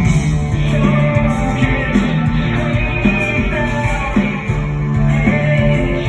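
Live rock band playing, with electric guitars, bass and drums carrying a steady beat.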